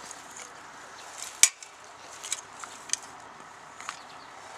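Metal hand cultivators, a Tornado twist tiller and a fork-style tiller, working into garden soil: scattered sharp clicks and clinks of the tines, the loudest about a second and a half in.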